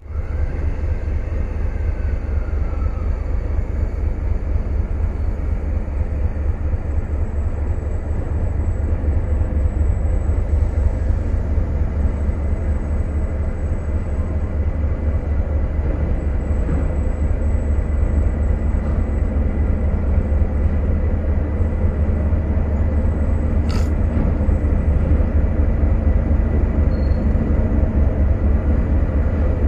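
Two diesel locomotives, a D12E and a D11H, running with a deep, rapidly pulsing engine rumble that grows slowly louder as the freight train approaches inside a railway tunnel. A single sharp click about three-quarters of the way through.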